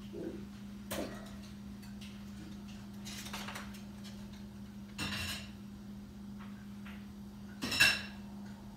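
Dishes and cutlery being handled: a few separate knocks and clinks, the loudest near the end with a short ringing clink, over a steady low hum.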